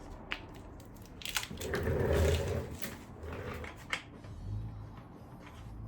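New primary cover inspection parts being tried on by hand: a few light clicks of small metal parts, and a short rough scrape about two seconds in as a part is worked into place.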